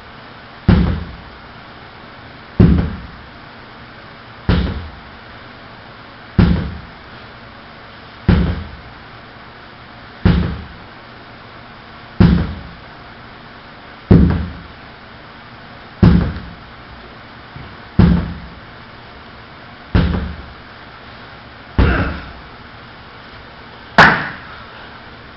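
A sledgehammer striking heavily and repeatedly, thirteen dull thuds at a steady pace of about one every two seconds. The last blow, near the end, is sharper, with more ring.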